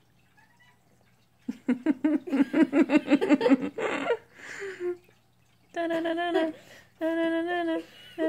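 A woman laughing in a quick run of bursts, then humming a few steady held notes.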